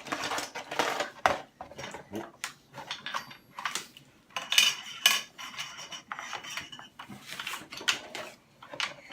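Small hard plastic toy pieces clattering and clicking as they are handled and unpacked, in an irregular run of knocks with the loudest a little under halfway.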